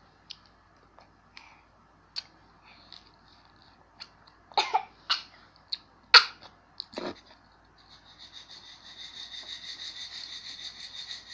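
A child coughing several times in quick succession, a sharp burst each, with the mouth burning from very spicy instant noodle seasoning. A steady high pulsing trill starts near the end.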